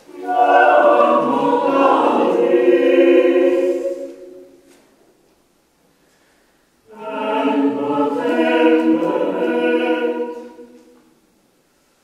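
Mixed choir singing a cappella: two phrases of sustained chords, each about four seconds long, with a pause of about two seconds between them.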